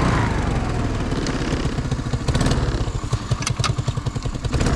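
ATV engine whose revs drop at the start and then settle to a low, uneven chugging idle.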